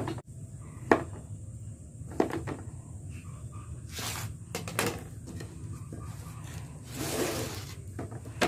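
Kitchen knife slicing a block of tempeh, the blade knocking on a wooden cutting board in several sharp knocks spaced about a second apart. There is a brief scraping rustle about seven seconds in.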